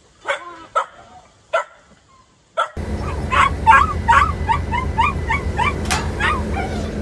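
Small dogs barking: four sharp single barks, then rapid, repeated high yips and whines, about four a second, over a steady low hum.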